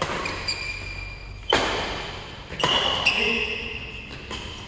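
Badminton rackets striking the shuttlecock in a rally: about five sharp hits that echo in a large hall, the loudest about a second and a half in. Shoes squeak on the court floor between the later hits.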